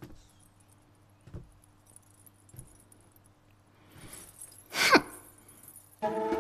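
Faint metallic jingling with a few soft taps, then about five seconds in a loud whoosh sweeping down in pitch. Music with drum-like percussion starts right at the end.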